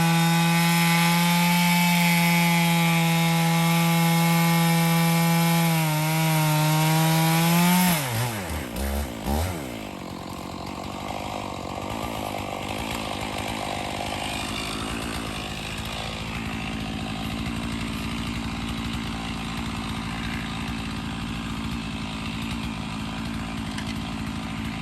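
Stihl MS 461 two-stroke chainsaw running at full throttle, cutting wood in a vertical mini-mill, with a steady high engine note. About eight seconds in the throttle is released and the engine winds down quickly to a low idle, which goes on for the rest.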